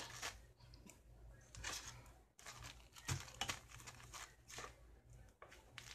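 Faint plastic crinkling and tearing as a new small plastic bag is opened, in irregular crackles.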